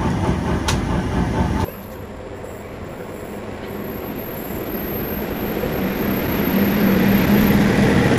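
A train running on the rails. It is loud at first, then about a second and a half in it changes abruptly to a quieter, steadier run that grows louder and louder, with a low hum building toward the end.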